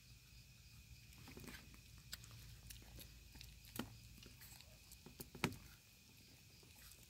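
Near quiet: a few faint, sharp clicks and taps, the loudest about four and five and a half seconds in, over a faint steady high tone.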